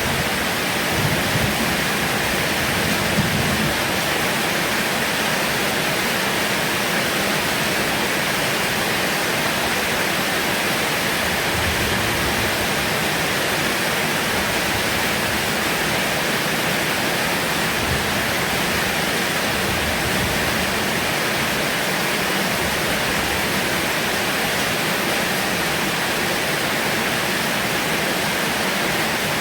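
Heavy rain falling steadily, an even hiss with no letting up. A low rumble of thunder dies away in the first few seconds.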